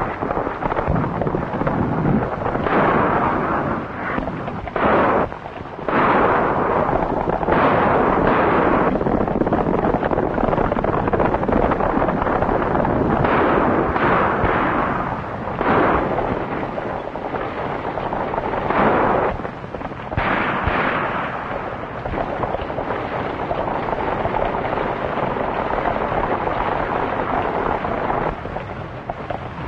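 Gunfire in a western fight scene: many shots, some in quick succession, over a continuous rushing din.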